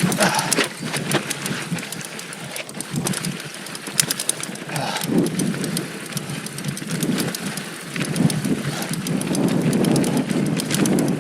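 2019 Giant Stance 2 mountain bike riding down a steep, loose, rocky dirt trail: tyres crunching over dirt and rock, with many sharp clicks and rattles from the bike.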